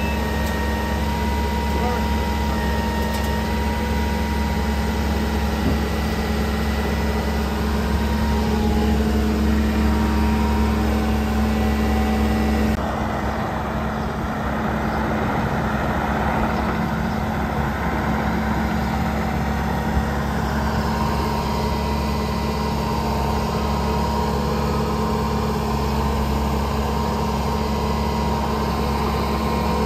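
Diesel engine of a Mecalac 6MCR compact excavator idling steadily, its tone changing abruptly a little before halfway through.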